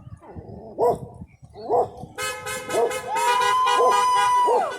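A dog barks about once a second while a passing car's horn sounds from about two seconds in. The horn is held for a second and a half as the loudest sound, then drops in pitch and stops near the end.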